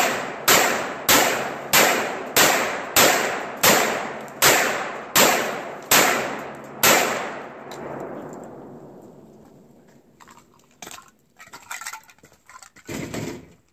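AR-15 rifle firing .223 in a steady semi-automatic string: about a dozen sharp shots roughly two-thirds of a second apart, each followed by an echo. The last shot's echo fades away over about three seconds, then faint footsteps and handling noises follow as the shooter walks off.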